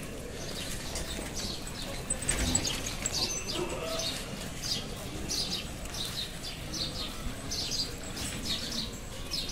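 Small birds chirping over and over in quick, short high calls, with faint voices murmuring underneath and a dull thump about two seconds in.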